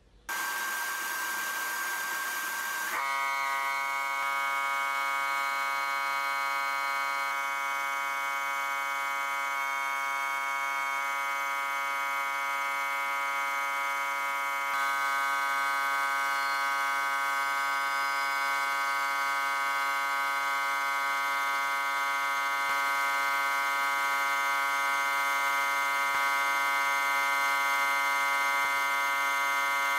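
Abrasive blast cabinet in use: the blast gun runs continuously, giving a steady hiss of air and grit with a steady whistling drone over it. The sound starts just after the beginning, and the drone takes on a fuller set of tones about three seconds in.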